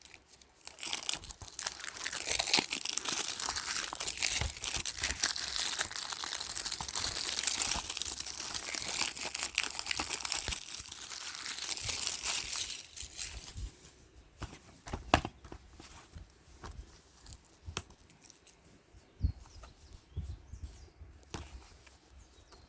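Plastic shrink-wrap being torn and crinkled off a 4K disc case for about twelve seconds, then scattered light clicks and taps as the case is handled.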